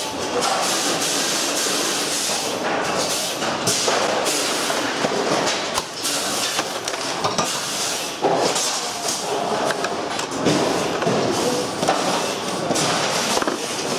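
Plastic and metal parts of a pachinko machine's frame clattering and scraping as they are pried and pulled apart by hand: a dense, continuous rattle with sharper knocks, loudest about eight and ten and a half seconds in.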